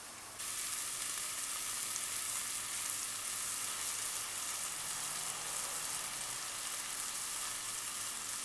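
Sliced onions sizzling in oil in a stainless steel sauté pan: a steady, even hiss that grows louder about half a second in.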